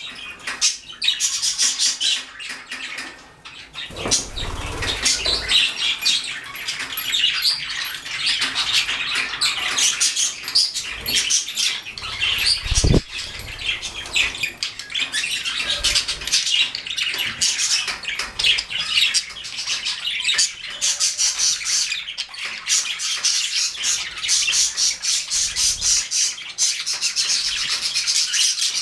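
A flock of budgerigars chattering and warbling, a dense, unbroken stream of fast chirps and squawks. There is a single dull knock a little before the halfway point.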